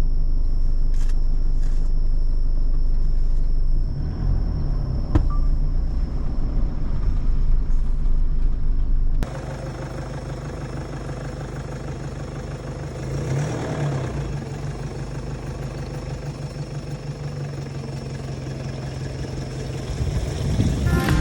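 Vehicle engine and road rumble on a rough track, loud for the first nine seconds, then cutting suddenly to a quieter, steady engine drone.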